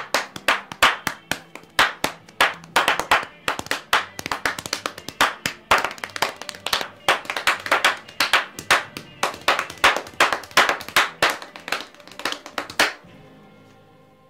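Body percussion: quick, rhythmic hand claps and open-handed slaps on the chest, about three to four strikes a second, stopping near the end.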